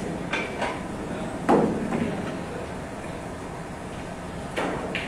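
A few short knocks near the start, one louder thud about one and a half seconds in, and another knock near the end.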